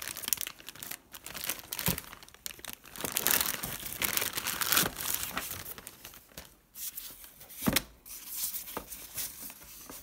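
Plastic bag and foam packaging wrap crinkling and tearing as a robot vacuum's charging dock is unwrapped, with a couple of knocks on the cardboard box, about two seconds in and again near eight seconds.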